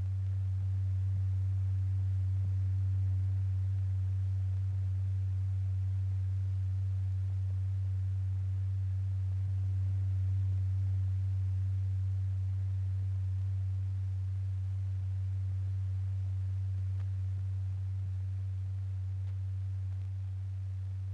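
Steady low pure tone exciting a stretched diaphragm strewn with lycopodium powder, setting the powder clumping and circulating. The pitch holds while the loudness swells and eases a little, dipping slightly near the end.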